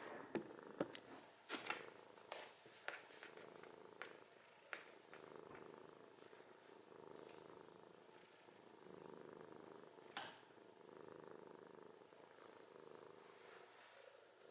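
Scottish Fold cat snoring softly, a low rasp swelling and fading with each breath about every two seconds. A few light clicks in the first few seconds and one near ten seconds.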